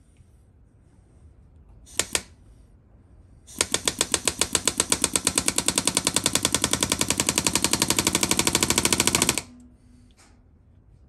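A power hammering tool rattling out fast, even blows, about ten a second, punching a pin out of a Honda CB360 cam chain. A short double burst comes about two seconds in, then a run of about six seconds that stops abruptly.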